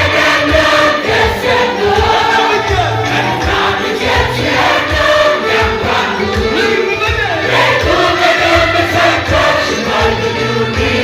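Gospel worship song with a choir singing over a band, with a steady drum beat underneath.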